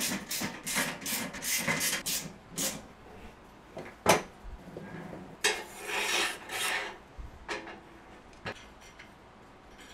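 Hand assembly of a sheet-steel welding cart: a run of quick rasping strokes as a caster's bolt is screwed in, then a single sharp knock of the steel panel about four seconds in, and a scraping rub a little later.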